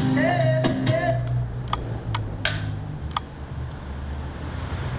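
Music cuts off about a second in, leaving a steady hiss over a low hum broken by four short sharp clicks, as the H-Buster HBD-9200AV car DVD player's head unit is switched over to its FM radio.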